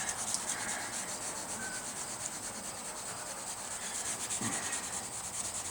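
Wet sandpaper rubbing back and forth over automotive base-coat paint, wet sanding out a flaw before clear coat. Quick, steady hand strokes.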